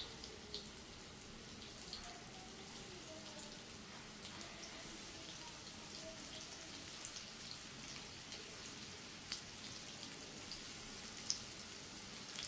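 Oil sizzling in a shallow frying pan as flour-coated drumstick pieces are laid in one by one for shallow frying. A low, steady hiss with scattered crackles and pops.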